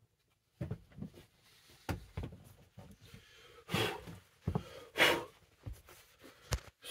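Scattered rustling and light knocks of handling, with two louder swishes near the middle.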